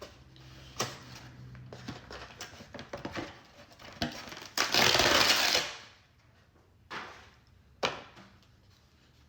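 Takeout food packaging being handled: scattered clicks and rustles, with a loud crinkling rustle lasting about a second, about five seconds in.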